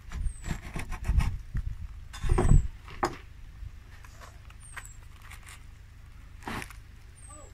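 A crusty sesame bun being gripped and squeezed by hand, the crust crackling and rustling with dull thumps. It is busiest in the first three seconds, then settles to a few small crackles.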